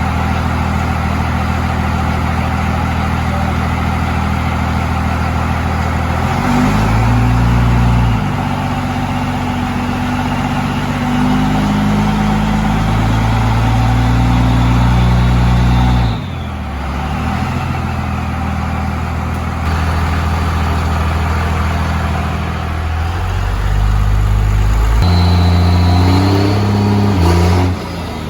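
5.9 Cummins inline-six turbo diesel running hard, its engine speed climbing and falling back in steps several times, with a sudden drop about 16 seconds in.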